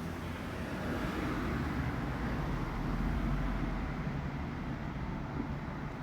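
Steady rumble of road traffic, swelling a little about halfway through as a vehicle passes.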